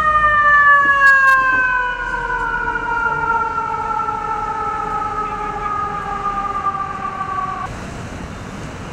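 Emergency vehicle siren sounding one long tone that slowly falls in pitch, then cuts off abruptly near the end and gives way to street noise.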